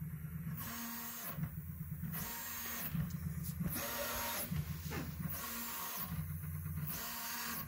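Prusa i3 MK3 3D printer's stepper motors whirring during its automatic mesh bed levelling. The print head moves from point to point and lowers to probe the bed, in a cycle that repeats about every one and a half seconds.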